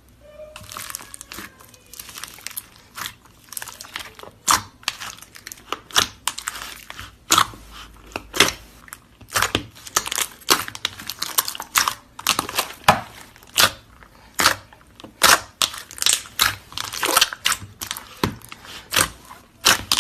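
Slime being squeezed and pressed by hand, giving an irregular run of sharp crackling clicks and pops that grows louder and denser after a few seconds.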